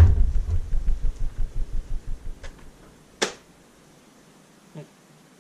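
Plastic parts of a metal detector being handled, clicking and rattling over a low rumble that fades out, then one sharp click about three seconds in.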